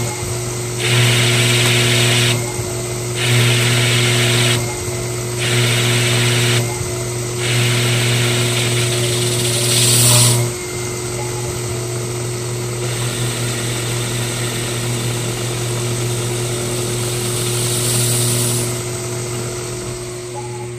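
DIY CNC lathe cutting a metal shaft: the spindle motor hums steadily while the cut adds a hissing, grinding noise. The noise swells and drops about every two seconds for the first half, then settles into a steadier, quieter cut.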